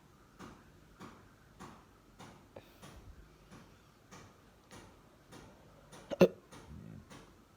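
A single loud hiccup about six seconds in, over a run of soft, evenly spaced clicks about every 0.6 seconds.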